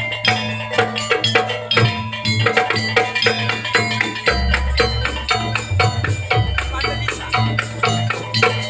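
Instrumental music from a live percussion ensemble: many fast, tightly packed strokes over ringing pitched tones and a pulsing low drum.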